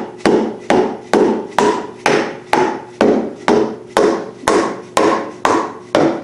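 Mallet blows driving a flat belt pulley onto a stainless steel shaft, a snug press fit. The strikes come evenly, about two a second, and each rings briefly.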